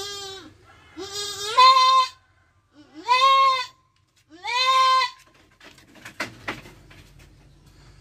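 Doe goat in labour bleating loudly four times, drawn-out cries that rise and then fall, during a birth the owner says is difficult. A few short knocks follow near the end as she gets to her feet on the bamboo slat floor.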